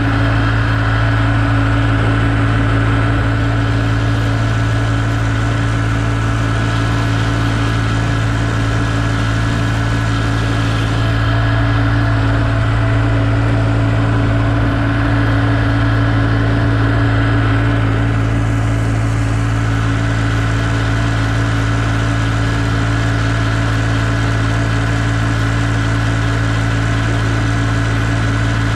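Tractor diesel engine running steadily at constant speed, with an even, unchanging hum.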